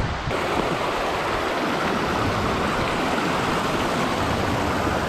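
Fast-flowing river water rushing over rocks: a steady, even rush. About a third of a second in it changes abruptly, and a low rumble drops away.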